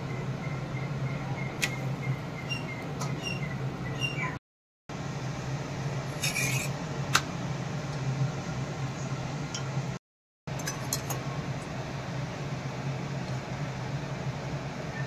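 Masala roti cooking in oil on a hot iron tawa: a steady low hum with an even sizzling hiss, a few light clicks and a short scrape about six and a half seconds in. The sound cuts out to silence for a moment twice.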